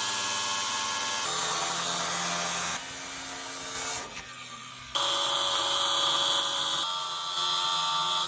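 A power tool cutting sheet metal with a steady whine, in several short stretches joined by abrupt changes in pitch and level. It is making relief cuts so the metal will bend.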